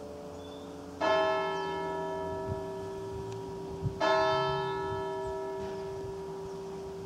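Church tower bell tolling: two strokes about three seconds apart, each ringing out and slowly dying away, with the hum of the earlier stroke still sounding beneath.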